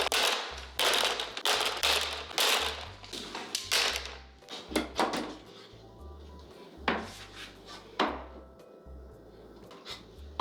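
A series of short scraping strokes, about two a second at first and then more spaced out, over faint background music.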